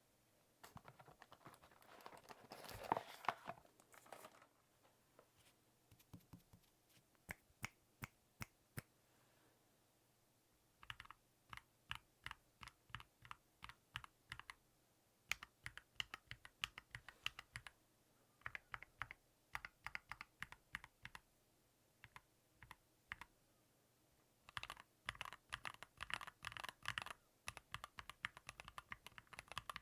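Keystrokes on a Keychron Q0 Plus mechanical numpad with Gateron G Pro brown switches. First comes a few seconds of scraping or rustling handling noise, the loudest part, then single key presses about a second apart. After that come runs of rapid key clicks, with a short pause partway through.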